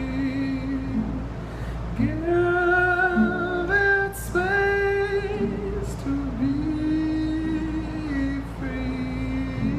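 A man singing slow, long-held notes to his own acoustic guitar; the melody climbs higher about two seconds in and comes back down after about five seconds.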